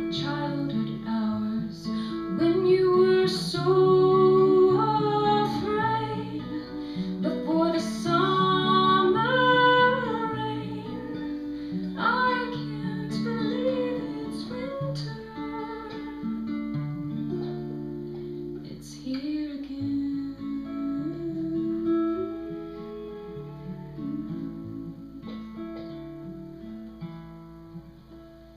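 Acoustic guitar playing the closing passage of a folk song, with a woman's voice singing over it in the first half; the music grows quieter toward the end.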